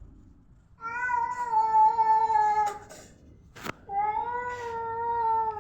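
A cat yowling in two long, drawn-out calls of about two seconds each, held at a steady pitch, with a sharp click between them. It is the angry warning howl of a cat squaring up to another cat.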